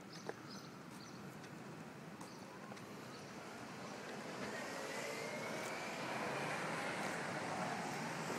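A vehicle engine approaching and growing steadily louder, with a faint whine that rises in pitch and then falls away.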